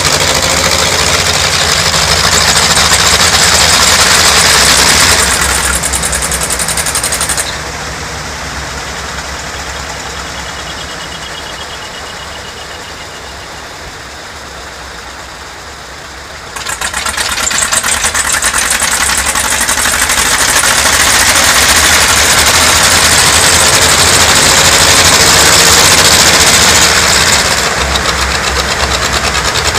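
Many vintage Zetor tractors' diesel engines running together in a loud, knocking chorus. About seven seconds in they all drop back to a lower idle at once, then about sixteen seconds in they are revved up together again, easing off near the end.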